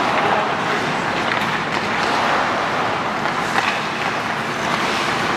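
Live ice hockey play: a steady scraping hiss of skate blades on the ice, with a few faint clacks of sticks and puck.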